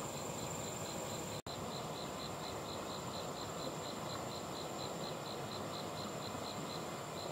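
Insects chirping: a rapid pulsed chirp about five times a second over a continuous high buzz, against a steady hiss. The sound cuts out for a split second about one and a half seconds in.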